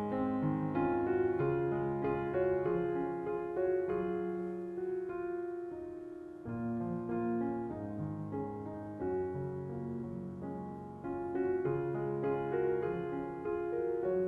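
Soft background piano music, slow notes over a sustained low chord.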